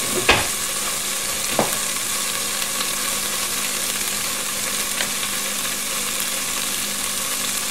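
Hot fat and meat drippings sizzling steadily in an enamelled Dutch oven after the beef has been browned, with two sharp knocks in the first two seconds.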